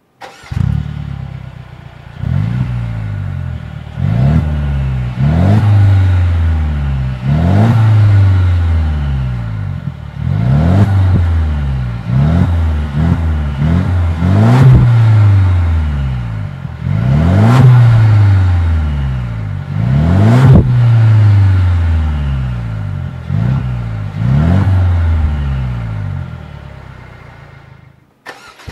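Mercedes-Benz W207 E250 CGI's turbocharged four-cylinder engine revved repeatedly at standstill through an MEC Design 'Sound Version Daytona' exhaust. About a dozen quick blips, each rising sharply in pitch and falling back slowly to idle.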